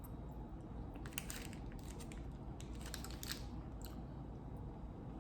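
A person chewing a soft sweet with her mouth close to the microphone: faint, wet mouth clicks that come in small clusters.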